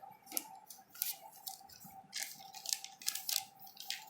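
Packaging being handled: irregular crackling and clicking of paper and wrapping as the contents of a hair dryer box are taken out, over a faint steady tone.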